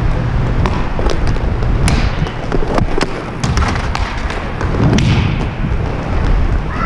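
Roller hockey play heard from a helmet camera: inline skate wheels rumbling and clattering over the plastic tile rink floor, with many sharp clacks of sticks and puck.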